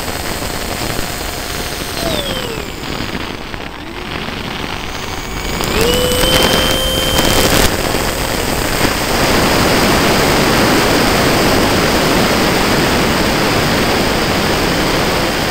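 Onboard sound of a radio-controlled F-86 model jet in flight: a loud rush of wind over the camera with the jet's engine whine, which drops in pitch about two seconds in and climbs again about six seconds in as the wind noise grows louder and stays steady.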